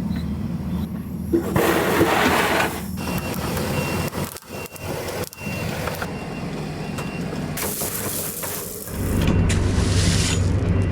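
Diesel engine of a heavy excavator running steadily, with a high warning beeper sounding in short pieces about halfway through. There is a rushing noise twice, and the engine gets louder near the end.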